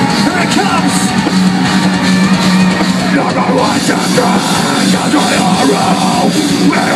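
Progressive deathcore band playing live through the stage PA: distorted electric guitars, bass and drum kit with keyboards, and the vocalist singing into a microphone over it.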